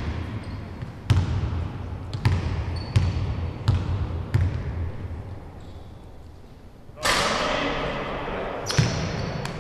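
A basketball bounced on a hardwood court before a free throw: about six steady bounces, roughly 0.7 s apart. After a pause, a sudden burst of noise rises about seven seconds in, followed by two more bounces near the end.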